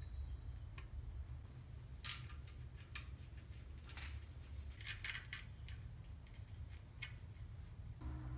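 Hoist chain links jingling and light metal clinks as a hanging bare engine block is turned and shifted by hand, in a scattered run of short clinks over a low steady rumble.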